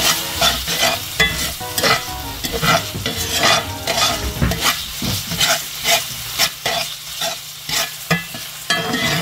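Metal slotted spatula scraping and stirring tomato paste, garlic and black olives around a sizzling cast iron pan, about two strokes a second, as the tomato paste browns in the oil.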